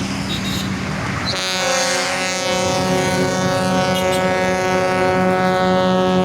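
Bus ship-style air horn (klakson kapal laut) sounding one long steady blast, rich in overtones. The blast starts about a second in over vehicle engine and road noise and is still going at the end.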